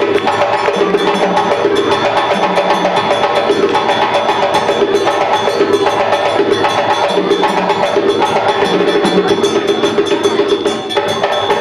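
Live African drumming and hand percussion playing a fast, steady beat, with sharp wood-block-like strikes over lower drum tones.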